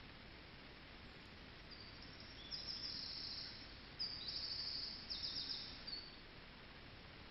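A small songbird singing a run of high, rapid trills, in several phrases over about four seconds, over faint steady background hiss, with a single short click near the middle.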